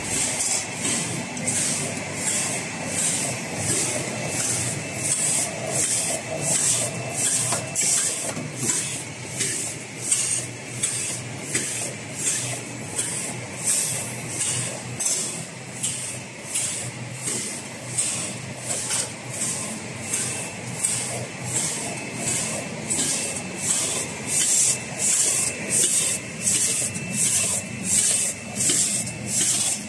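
Cup printing machine running, with a regular stroke repeating about one and a half times a second over a steady high whine and a low hum.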